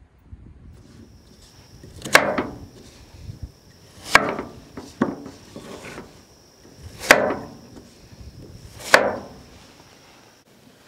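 Kitchen knife slicing through carrot and striking a wooden cutting board: four loud, slow cuts about two seconds apart, each a sharp knock with a short crunch after it, and a lighter cut between the second and third.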